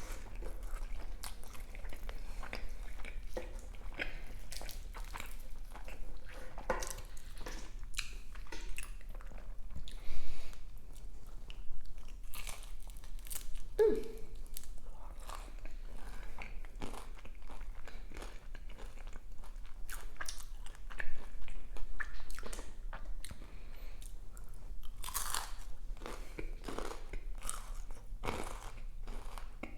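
Close-miked eating: repeated bites and chewing of crunchy food, with irregular sharp crackles and crunches.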